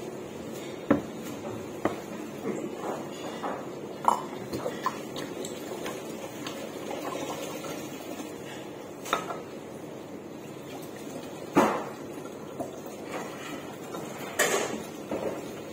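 Kitchen clatter: a series of separate knocks and clinks as a metal lever hand press, glass soju bottles and a drink can are handled and set down on a counter. Liquid is poured from a soju bottle partway through.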